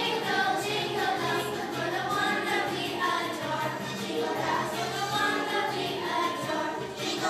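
Children's choir singing a song together over a steady low instrumental accompaniment.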